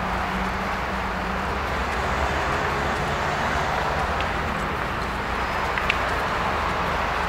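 Steady outdoor background noise with a low rumble underneath, and a couple of faint clicks about six seconds in.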